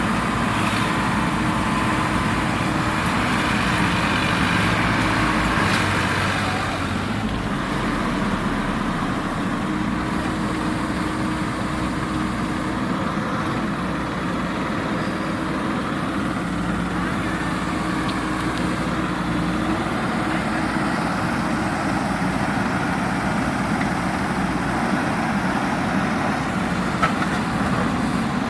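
Heavy diesel machine engine running steadily, easing slightly in level about seven seconds in.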